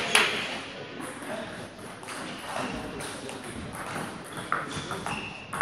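Table tennis ball clicking off paddles and the table: a last hit just after the start, sparse light taps through a quieter lull, then a sharp click near the end as the next rally begins. Two short high squeaks come just before the end.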